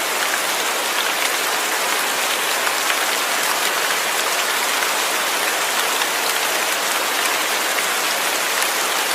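Steady rain falling, an even hiss dotted with small drop ticks.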